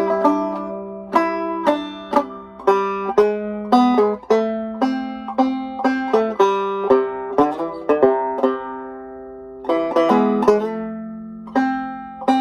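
Five-string banjo played clawhammer style: a run of plucked and struck notes at about two a second, with strums between them, and one longer note left to ring and fade about two-thirds of the way through.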